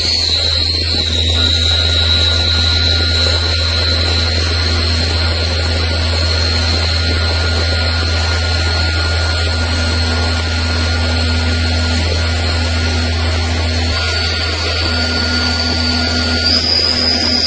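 CNC lathe running: a steady high whine from the spindle drive over a low hum, the whine stepping slightly higher near the end.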